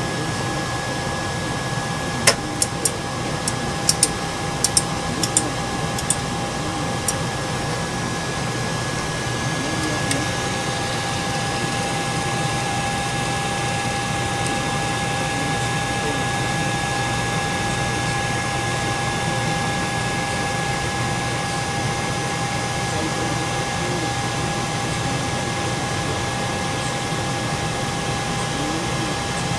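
FLSun Q5 delta 3D printer running a print: a steady fan-like whir with a steady tone held through it, and a handful of sharp clicks in the first several seconds.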